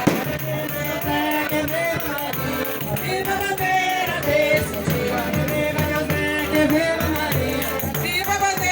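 Group singing a São João flag-raising folk song over a steady beat of rhythmic percussion, with a sharp bang at the very start.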